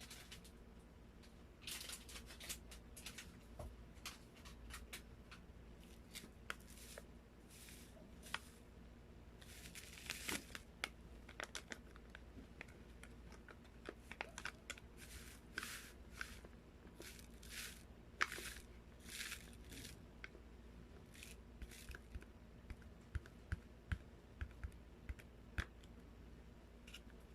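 Sliced bread being torn and handled close to the microphone: a long run of short, irregular tearing and crinkling noises.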